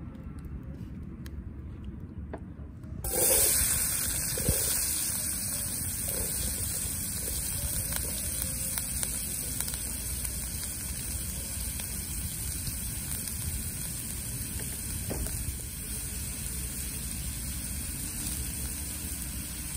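Food sizzling in a hot cooking pot over an open fire. The sizzle starts suddenly about three seconds in, as if something was added to hot oil, then runs on steadily with a few light knocks of a utensil.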